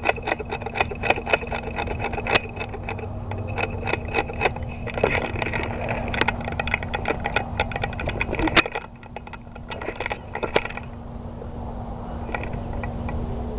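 Rapid, irregular clicking and metallic rattling of a player's carried gear with footsteps as he moves on foot, thinning out about eleven seconds in.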